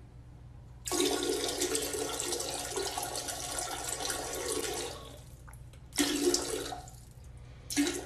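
Toilet flushing: a loud rush of water starts abruptly about a second in and dies away after about four seconds. Two shorter bursts of water noise follow near the end, over a steady low hum.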